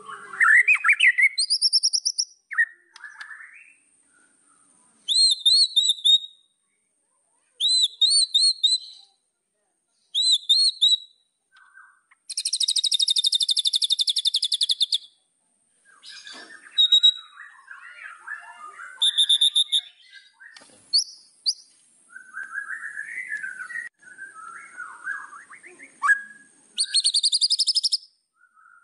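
White-rumped shama singing: phrases of repeated, bouncing high whistled notes with short pauses between them, a long buzzy trill about halfway through, then lower, varied chattering notes, and another trill near the end.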